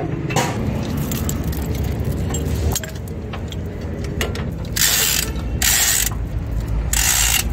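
Metal-on-metal clicking and ratcheting of hand tools and chain being worked on a truck axle, over a steady low hum. In the second half come several short bursts of hissing noise, each about half a second long.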